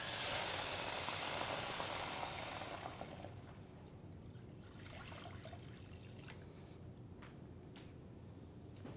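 Water poured from a measuring cup into a wide pan of corn cob pieces. The pour is loudest for about the first three seconds, then tapers off to a faint trickle.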